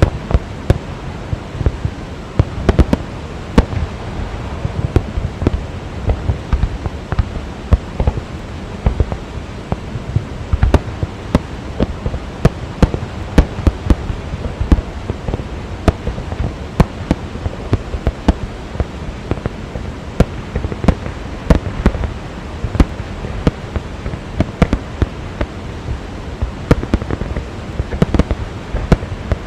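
Fireworks display: a dense, irregular barrage of bangs and crackles, several a second, over a continuous rushing din.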